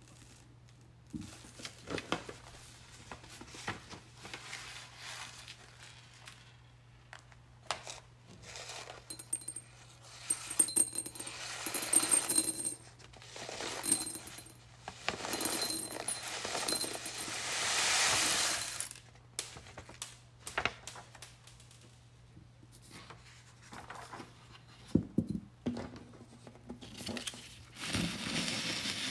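Red sand and small metal beads poured off a folded sheet of paper into a glass jar: beads clicking and rattling against the glass, and sand hissing as it slides off the paper, densest about halfway through. Quieter paper rustles and light taps at the start and near the end, over a faint low hum.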